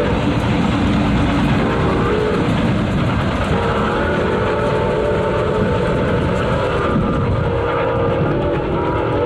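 Milwaukee Road 4-8-4 No. 261 steam locomotive running past with its multi-tone whistle sounding over the rumble of the train, the whistle's pitch stepping down and back up a few times.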